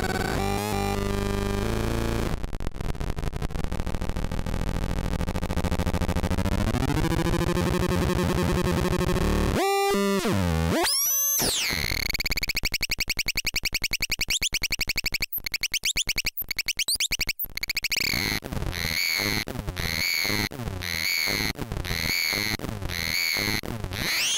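Hand-built analog noise machine playing harsh, buzzy electronic tones that jump between pitches, with a fast sweep up and down about ten seconds in. Later it settles into a pulsing pattern about once a second, each pulse a swooping chirp.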